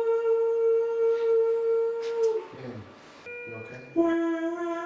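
A woman in unmedicated labour moaning through the pain: one long held moan that trails off and drops in pitch about two seconds in, then a second, lower moan near the end.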